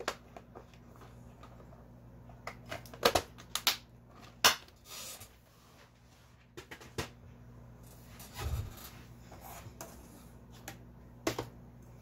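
Scattered clicks and light taps of small electronic parts and a plastic parts organizer box being handled on a wooden desk, with one dull thump a little past the middle, over a faint steady hum.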